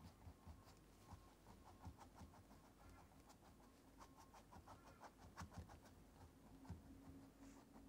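Very faint scratching and tapping of a paintbrush on stretched canvas, many short irregular strokes as acrylic paint is blended in.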